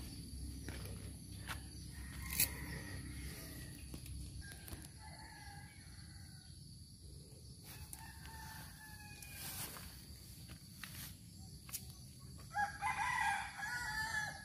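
Roosters crowing: a few faint crows, then a louder, longer crow near the end, over a low steady rumble and a few light knocks.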